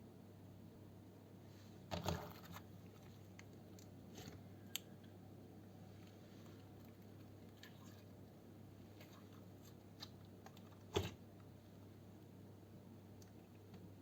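Slime being handled close to the microphone: a few scattered crackles and clicks, a cluster about two seconds in, a single sharp click near five seconds and another cluster about eleven seconds in, over a low steady hum.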